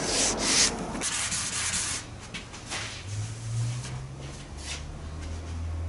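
Primer surfacer on a car body being sanded by hand, sandpaper rubbing in strokes. The strokes are strongest over the first two seconds, then come lighter and sparser. A low hum comes in about three seconds in.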